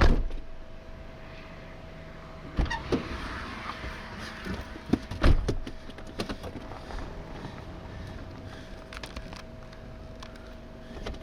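Car sounds: three sharp knocks about two and a half seconds apart, such as a door or window, over a steady thin whine and low rumble.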